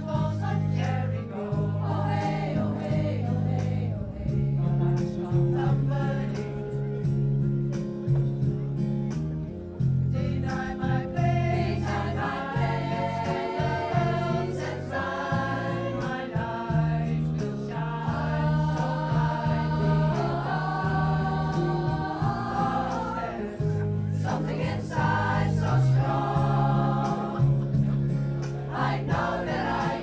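A mostly female pop choir sings in many parts over an amplified accompaniment with a steady bass line. The voices swell fuller and higher in the middle stretch, then drop back.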